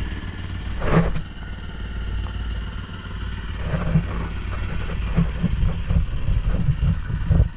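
Small engine on the boat running steadily with a low hum. A knock comes about a second in, and irregular thumps and bumps follow in the second half.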